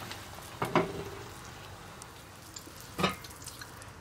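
Silicone spatula stirring a thick mixture of sago, banana and coconut milk in a nonstick pot, with two short wet scrapes, about a second in and again about three seconds in.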